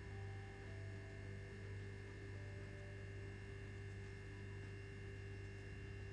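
Steady low electrical hum, like mains hum in the recording, with a few faint steady higher tones over it; nothing else sounds.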